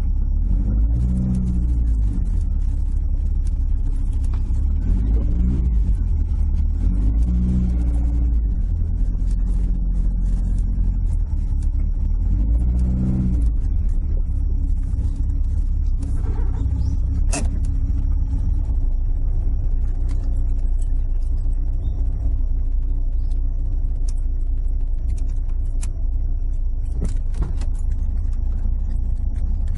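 Toyota AE86's 4A-G twin-cam four-cylinder engine running, heard from inside the cabin, with a few brief rises and falls in pitch in the first half before settling into a steady idle. A few sharp clicks come a little past the middle.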